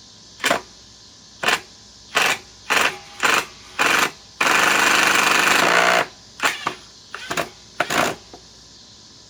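Cordless impact driver hammering a long Phillips drywall screw in with short trigger pulses: six quick bursts, then one run of about a second and a half, then a few more short bursts.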